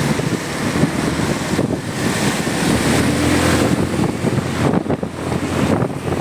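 Wind blasting the microphone of a moving motorcycle, with the engine and road noise beneath; a steady engine note shows through for a moment about halfway in.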